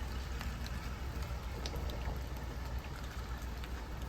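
Heavy rain falling on a moving car, scattered drops ticking over a steady low rumble of the engine and tyres.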